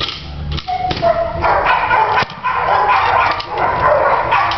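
Dogs barking and yipping, the barks running together thickly from about a second and a half in.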